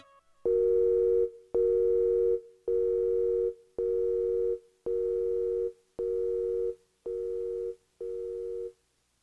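Telephone line tone, like a busy signal: eight beeps of a steady low two-note tone, each just under a second long with short gaps between, growing quieter toward the end.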